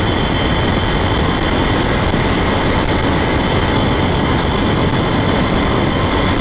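Lifan KPR 165 motorcycle cruising at a steady highway speed, its engine running under a dense, even rush of wind on the on-board microphone, with faint steady whining tones above.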